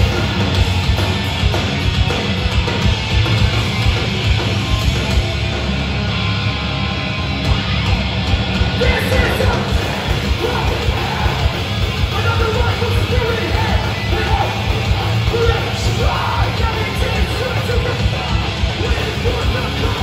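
Hardcore punk band playing live, with distorted electric guitars, drums and shouted vocals, recorded from within the crowd.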